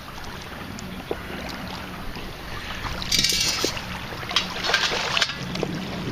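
Wind on the microphone over water sloshing along the shore, with two spells of louder splashing hiss about three seconds in and again a second later.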